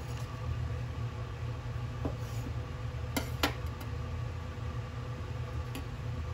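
Steady low hum with a few light clicks and knocks as cut shiitake pieces are handled on a wooden cutting board; the sharpest are a quick pair just past the middle.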